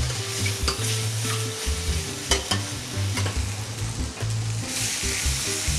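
Food frying and sizzling in a hot pan on the hob, with a steady hiss that grows louder near the end and a few light clicks of a utensil.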